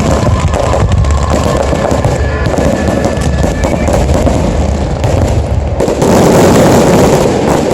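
Aerial fireworks bursting in quick succession, a continuous crackle over a low booming rumble, growing louder and denser with crackling shells about six seconds in.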